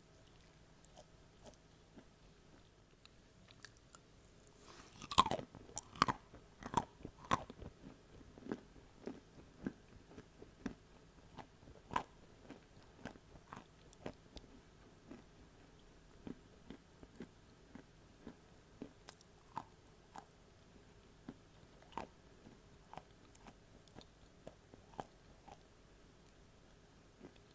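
Edible clay bitten and chewed close to an earphone microphone: a run of loud crisp crunches about five seconds in as a piece is bitten off, then steady smaller crunches about twice a second as it is chewed.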